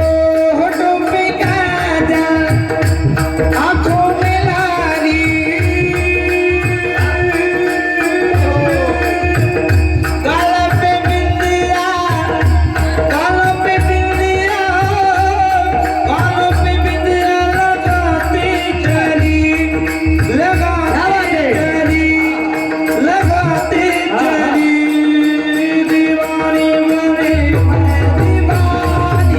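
Devotional song: a voice singing over a steadily held note and a drum beat.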